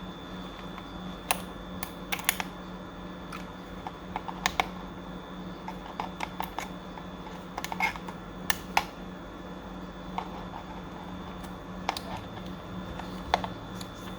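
Irregular small clicks and taps, about a dozen spread unevenly, from Marshall Major 4 headphone parts being handled and worked on, over a steady low hum.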